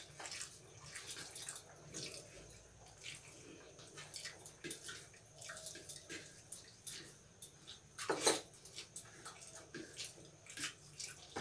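Two people eating rice and curry by hand: soft wet chewing and smacking and fingers mixing rice on the plates, an irregular run of small clicks and squelches with one louder sound about eight seconds in.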